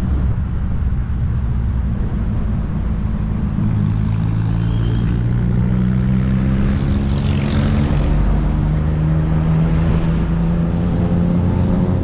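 Riding noise on a Kaabo Wolf King 72V electric scooter: a steady low hum that slowly rises in pitch, over wind and tyre noise. About seven seconds in, a brief higher sweep falls in pitch.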